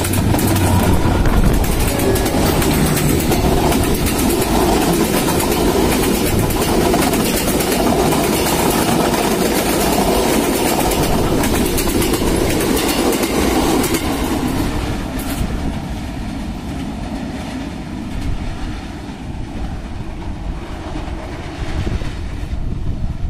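Passenger train coaches rolling past close by, wheels clattering over the rail joints. After about 14 seconds the clatter drops off and fades to a softer rumble as the train pulls away.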